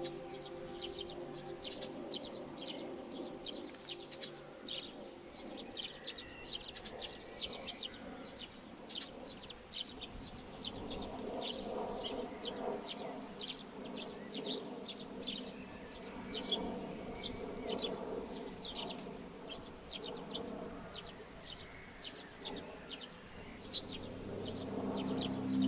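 Small birds chirping in a rapid, continuous series of short, high notes, over a low steady hum.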